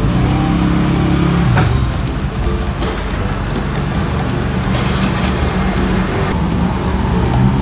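Steady road traffic with a vehicle engine humming, and a metal spoon stirring a drink in a plastic cup.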